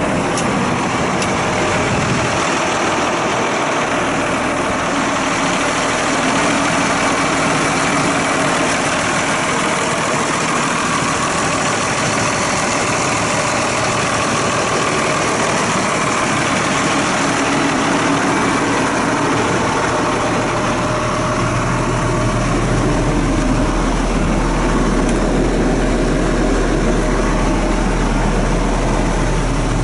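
Case Maxxum MX170 tractor's six-cylinder Cummins diesel idling steadily. A deep low hum comes in about two-thirds of the way through.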